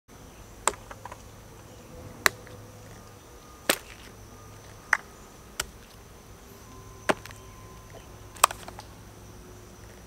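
Everyday-carry gear (phone, folding knife, flashlight, keys, holstered pistol on a belt) set down one piece at a time on a wooden stump: seven sharp clacks, roughly one every second or so.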